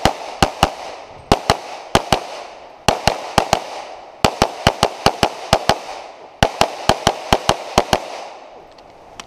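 Rapid pistol fire from a compensated STI .38 Super Open-class race gun: strings of sharp shots, several a second, broken by short gaps, about thirty shots in all.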